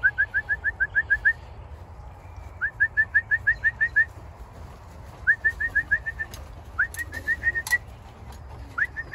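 Quick runs of short rising whistled chirps, about eight a second, repeated four times with pauses between: a fancier's whistle calling a returning racing pigeon down into the loft. A few sharp clicks come in the second half.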